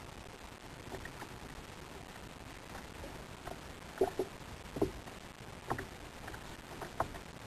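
A fishing rod and reel being worked from a kayak: scattered short clicks and squeaks from the gear and hull, the loudest just after four seconds and near the end, over steady wind and sea noise.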